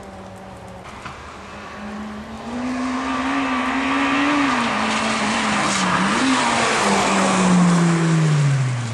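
Rally car approaching at speed and passing close by, its engine note rising and dipping with throttle and gear changes over a hiss of tyres on wet asphalt. Near the end the engine note falls steadily as the car goes past and slows.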